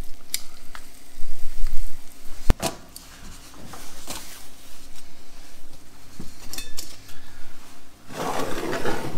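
Metal kitchen tongs scraping and clicking against a cast iron skillet as cooked quail pieces are lifted out, with one sharp clack about two and a half seconds in. Near the end a stainless steel lid is set down and handled on the skillet.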